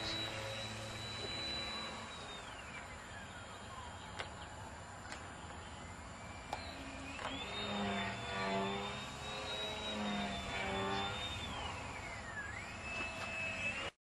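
Model aircraft's motor whining high in flight, its pitch sliding down as the throttle is eased off about two seconds in, climbing back up around seven seconds in and dropping again near the end, then cutting off suddenly.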